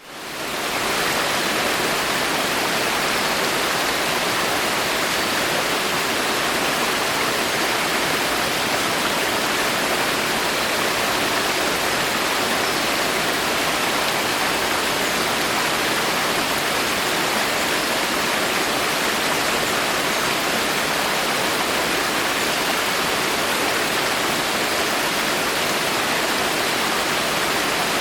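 Steady, dense rain falling in a forest, an even hiss of countless drops that fades in at the very start and then holds unchanged.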